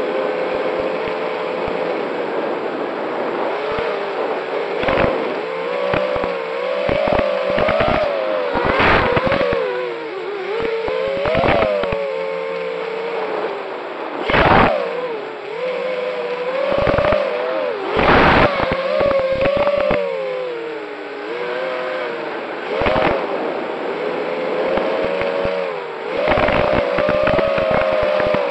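Racing quadcopter drones whining, their motor pitch rising and falling continually with the throttle, with several drones heard at once. Frequent short rushes of noise cut across the whine.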